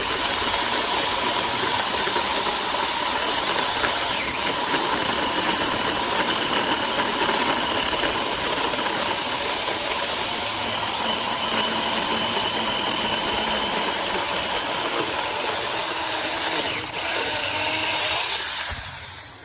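A Tomyvic 21-volt cordless 6-inch mini chainsaw running under load as its chain cuts through a small wooden stump, with a steady electric whine over the chain's rasping. It dips briefly about seventeen seconds in, then tails off near the end.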